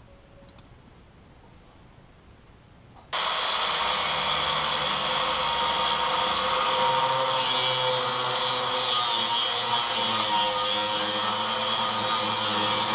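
Quiet for about three seconds, then a power cutting tool, most likely an angle grinder with a cut-off wheel, starts abruptly and runs steadily with a constant whine while cutting through the boat trailer's steel frame, throwing sparks.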